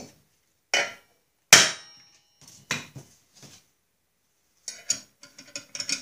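Hammer tapping on a gear puller clamped to a Snapper engine's flywheel, trying to shock the flywheel off its crankshaft taper: four sharp metallic strikes in the first three and a half seconds, the second loudest and ringing briefly. The flywheel stays on, rusted fast to the taper. Near the end comes a quick run of light clicks.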